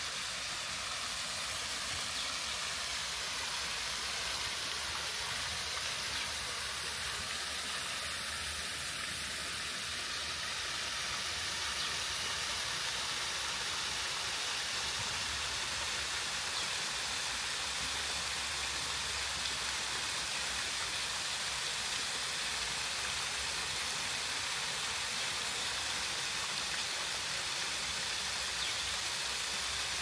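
Small waterfall spilling into a pond: a steady rush of falling water.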